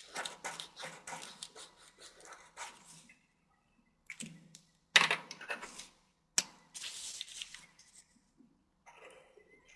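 Felt-tip marker scratching on folded paper in quick short strokes, in several bursts, with a sharp knock about five seconds in and another a second and a half later.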